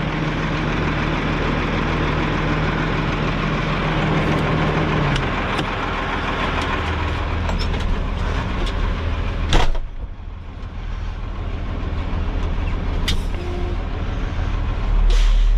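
Diesel dump truck engine running, heard from inside the cab. A sharp click comes about nine and a half seconds in, after which the engine sound is briefly quieter before rising again.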